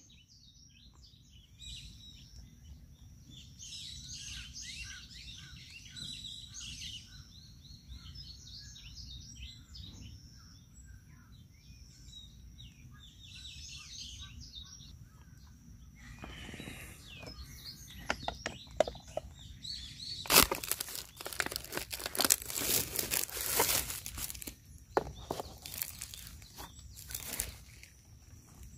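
Small birds chirping, a busy run of short high chirps. About halfway through, crinkling, rustling and clattering handling noise takes over, growing louder in the last third.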